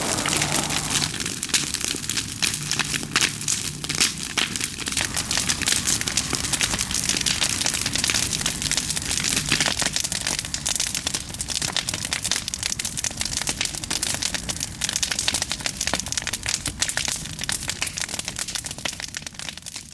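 Large wood campfire burning hard, with dense irregular crackling and popping over a steady rush of flame; it fades out at the very end.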